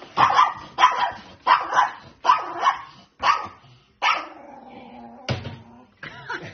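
A small dog barks in quick succession, about six sharp barks under a second apart, then gives a longer drawn-out sound and one more sharp bark near the end.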